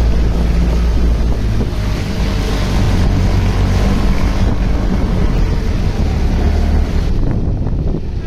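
Heavy wind rumble on the microphone over the hiss of car tyres on a wet road. The hiss drops away about seven seconds in.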